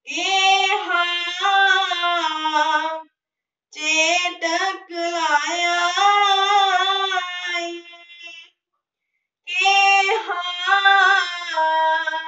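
A boy's unbroken voice singing a shabad, a Sikh devotional hymn, unaccompanied, in three long phrases with short pauses between them.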